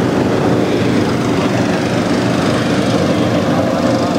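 Petrol-engine inflator fans running steadily, blowing cold air into hot-air balloon envelopes.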